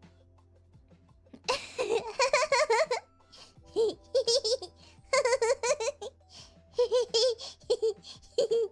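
A woman's high-pitched giggling in several fits, starting about a second and a half in, over faint background music.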